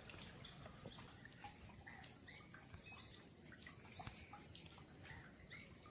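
Faint outdoor ambience of birds chirping: many short rising and falling calls, over a low hiss.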